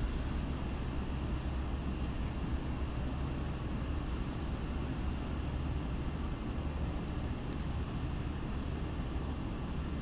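Steady low rumble and hiss of distant traffic and city background noise, even throughout with no distinct events.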